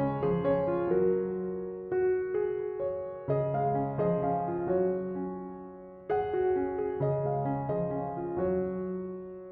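Background piano music: soft chords struck every second or two and left to ring and fade.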